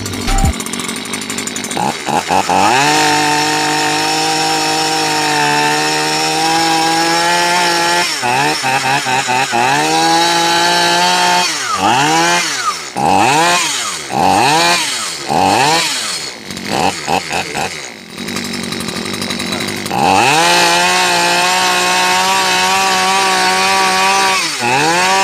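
STIHL two-stroke chainsaw engine running at high revs. Through the middle it is revved up and down repeatedly, then held high again.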